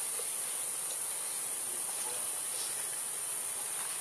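Steady high-pitched hiss of outdoor background noise, even throughout, with no distinct events.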